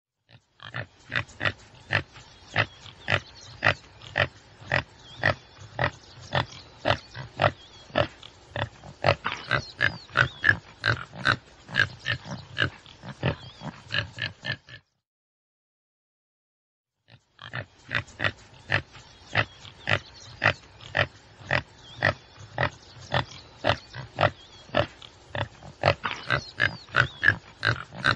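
Common tsessebe antelope giving a rapid series of short calls, about three a second, that break off for about two seconds midway and then start again.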